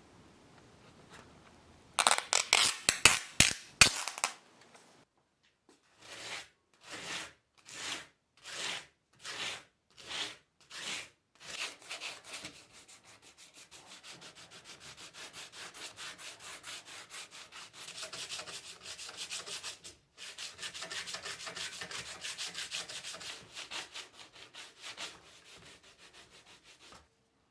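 Rusty steel bayonet scabbard being scrubbed by hand with an abrasive, in back-and-forth strokes. A short burst of loud, fast strokes comes about two seconds in, then slower, even strokes that quicken, then a long run of faster, lighter strokes.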